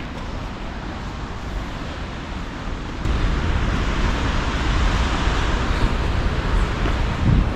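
Wind buffeting the microphone, a rumbling hiss that gets stronger about three seconds in.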